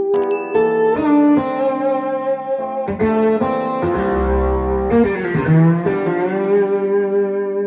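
Guitar music with effects played through a pair of 1990s Mission 701 bookshelf speakers. The chords change every second or so, with a deep low note about four seconds in.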